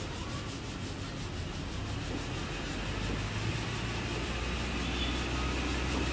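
Body filler on a pickup's cab being sanded by hand, a steady rubbing. A low vehicle rumble builds from about halfway through.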